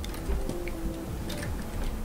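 A plastic stylus tip tapping and sliding on the glass screen of a Gaomon PD2200 pen display, a few light taps, over soft background music.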